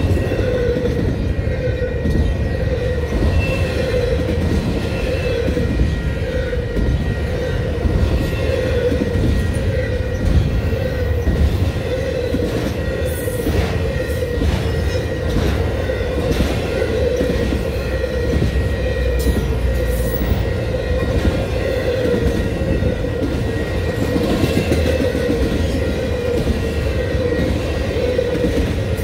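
Union Pacific intermodal freight train's loaded well cars rolling past: a steady rumble and rattle of steel wheels on rail, with a few sharp clacks about halfway through.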